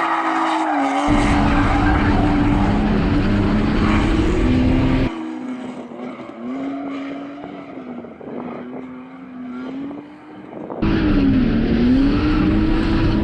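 BMW E46 328Ci's straight-six engine held at high revs during a drift test run, its pitch rising and falling with the throttle. The sound changes abruptly twice as the heavy rumble cuts out and comes back.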